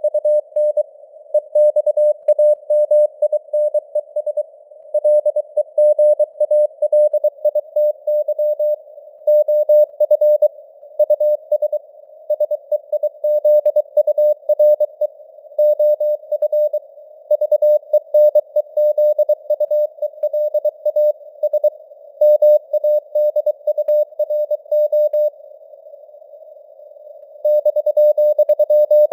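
Morse code at 23 words per minute: a single steady mid-pitched beep keyed on and off in rapid dots and dashes. It sits in a narrow band of simulated radio hiss, its strength fading up and down (QSB). It breaks off for about two seconds near the end before keying resumes.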